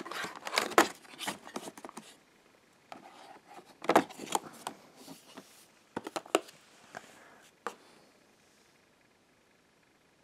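Hands handling the small cardboard doors and flaps of a cardboard advent calendar box: a run of taps, scrapes and rustles, with a louder cluster of clicks about four seconds in and a few single sharp clicks between six and eight seconds in.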